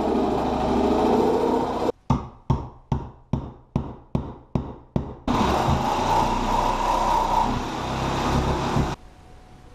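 A power tool's motor running steadily, cut off sharply about two seconds in. Then come about eight evenly spaced knocks, a little over two a second, each dying away quickly. The motor then runs again and stops abruptly near the end.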